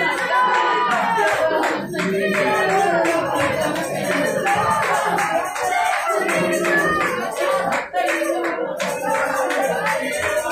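Live church praise music with hands clapping along and voices singing.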